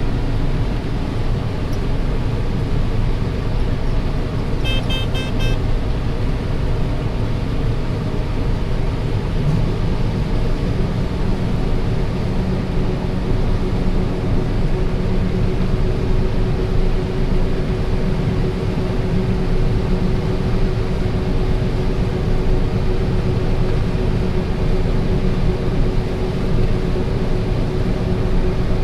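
Combine harvester running steadily while harvesting corn, heard from inside the cab, with a short series of electronic beeps about five seconds in.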